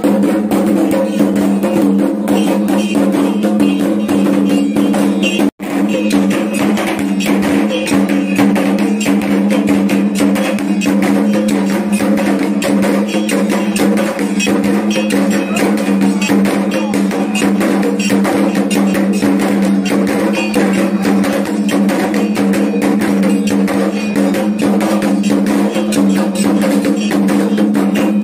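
Kendang drums beaten in a fast, unbroken rhythm for a belian healing rite, with a steady low drone beneath the strokes. The sound drops out for an instant about five and a half seconds in.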